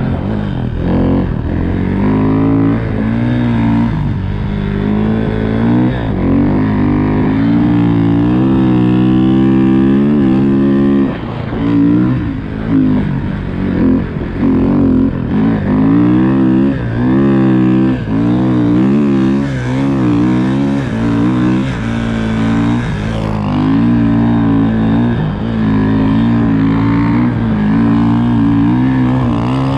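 Snow bike engine running under throttle, its pitch rising and falling continuously as the throttle is worked through deep snow. Between about 11 and 18 seconds in it drops off and picks back up several times in quick succession.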